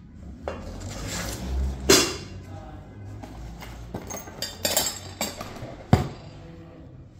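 Stainless steel eyewash fittings clinking and knocking together as they are handled, over the rustle of cardboard packaging. There are several sharp knocks, the loudest about two seconds in and another near six seconds, and brief metallic ringing around five seconds.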